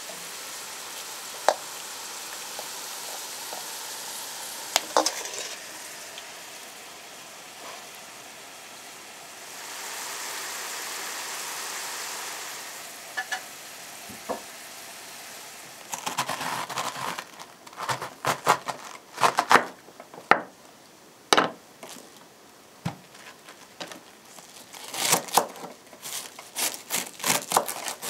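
Chopped vegetables frying in a pan on a stove: a steady sizzle with an occasional clink of a utensil, swelling for a few seconds. About halfway through it gives way to a kitchen knife shredding a cabbage on a wooden board, sharp irregular chops coming in quick runs.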